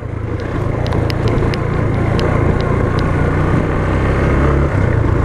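Yamaha Fazer motorcycle engine running steadily while riding a dirt road, with tyre and wind noise and scattered small ticks from gravel.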